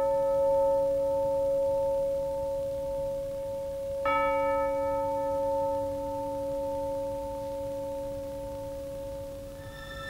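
A struck bell ringing with a long, clear tone: already ringing at the start, struck again about four seconds in, then slowly dying away. Near the end, music with several held notes comes in.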